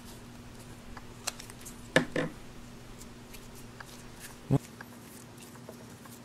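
Hands handling Play-Doh and plastic toy molds on a wooden table: scattered light clicks and taps, a sharp double knock about two seconds in and a single deeper knock about four and a half seconds in, over a faint steady hum.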